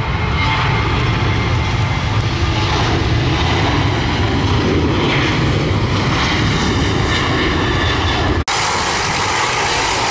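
Boeing 737 jet engines running at high power as the airliner rolls along the runway, a loud steady roar. About eight and a half seconds in, it cuts abruptly to a thinner, hissier engine sound from a Dash 8 turboprop taxiing.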